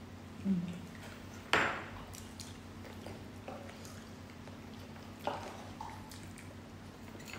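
Eating sounds at a table: eating utensils click sharply against dishes twice, loudest about a second and a half in and again near five seconds, with a few faint ticks in between. A short low hum comes about half a second in, and a faint steady hum runs underneath.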